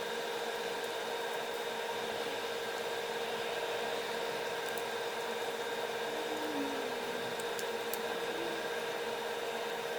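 Steady machine hum and hiss with a few fixed tones, like a small fan or motor running.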